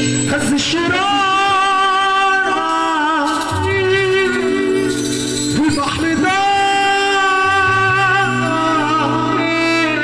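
Live Egyptian mawwal played over a PA: a male singer's long, held, ornamented phrases over amplified keyboard with a sustained bass note, in free rhythm without a steady beat.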